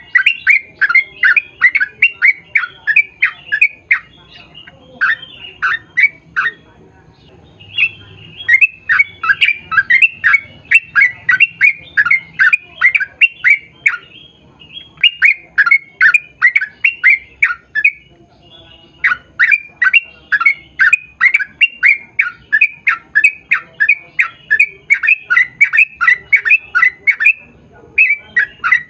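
Yellow-vented bulbul singing a long run of rapid, bubbly chattering notes, about three a second, in long strings broken by a few short pauses.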